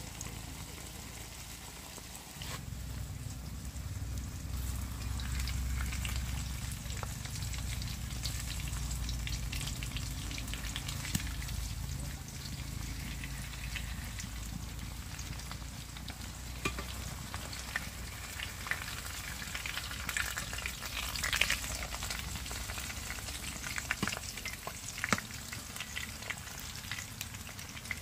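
Food sizzling as it fries in a pan, with scattered sharp clicks and scrapes of stirring. A low rumble runs under it through the first half.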